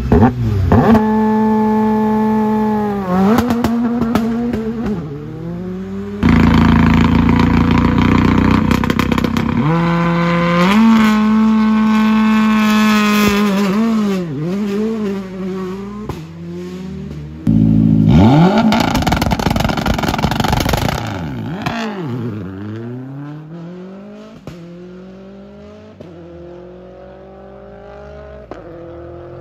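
Turbocharged rally cars at a stage start, one after another: each engine is held at steady high revs with anti-lag popping and crackling, then launches at full throttle, revs rising and dropping through gear changes. Two launches, about 6 s and 17.5 s in, the second car's engine fading as it pulls away.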